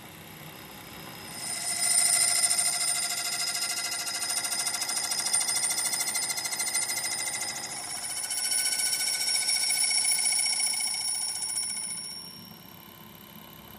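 Lathe cutting tool squealing against the face of a steel gear spinning in the chuck: a loud, high ringing of several pitches. It starts about a second in, eases briefly around eight seconds, comes back, and stops near the end.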